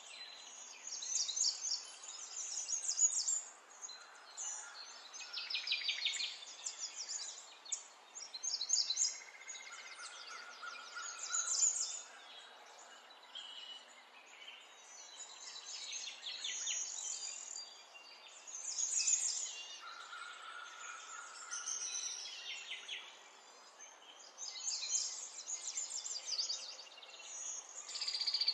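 Small birds chirping and twittering in quick repeated bursts, with a few short clear whistles, over a soft steady hiss.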